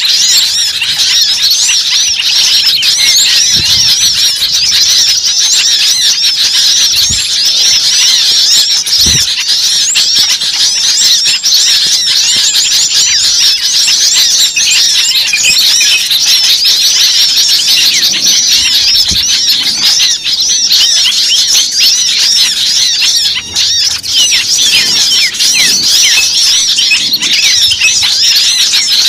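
A dense chorus of many small birds chirping and squeaking at once, a continuous high-pitched chatter of overlapping calls, with a few faint low thumps beneath it.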